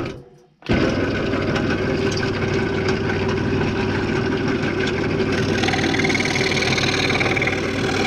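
Scroll saw running steadily with a low motor hum, its blade reciprocating; it comes on abruptly about a second in after a brief gap. A higher rasp joins about five seconds in as the blade cuts into the wooden ornament blank.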